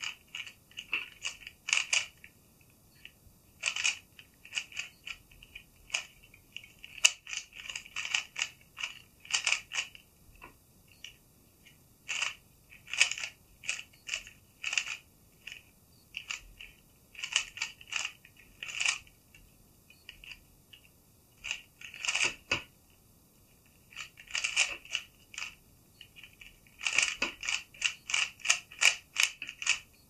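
A plastic Meilong 3x3 speed cube being turned fast by hand during a solve: quick runs of clicking, clacking layer turns broken by short pauses.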